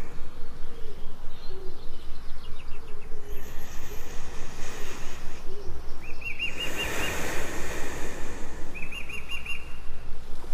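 Jungle ambience: birds calling, with two rapid trilled calls about six and nine seconds in and lower warbling calls throughout, over a steady river-like rush of water.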